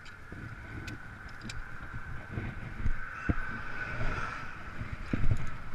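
Vehicle and wind rumble with a steady high-pitched whine, and a few small knocks and clicks.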